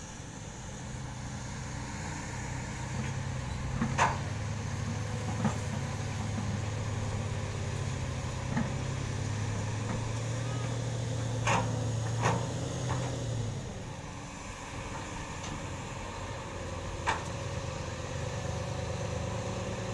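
Heavy diesel engines of an excavator and a dump truck running steadily on an earthworks site, with a few sharp knocks and clanks standing out.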